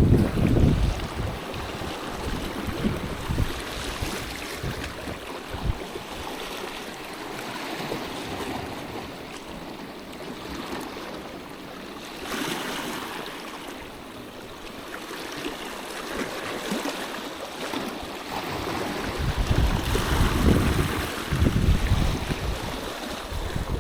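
Sea washing at the water's edge, a steady rush of water, with wind buffeting the microphone near the start and again in the last few seconds.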